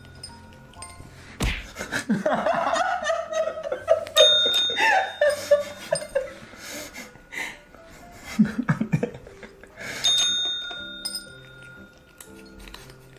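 Pink tap call bell dinging twice, about four seconds in and again about ten seconds in, each ring fading away, over background music. A laughing voice is the loudest sound between about one and a half and six seconds in.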